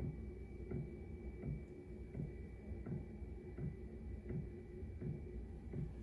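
A 12 V diesel heater's fuel dosing pump ticking steadily, about three ticks every two seconds, over a constant low hum and a faint high whine, as the heater starts up and begins to burn.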